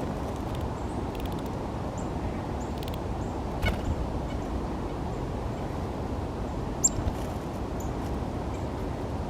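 Steady low background noise with a few brief, faint high chirps from small birds, and two short sharp sounds about four and seven seconds in.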